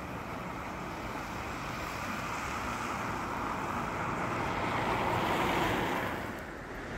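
Steady rushing outdoor noise with no voices, building over several seconds to a peak about five and a half seconds in, then dropping off sharply.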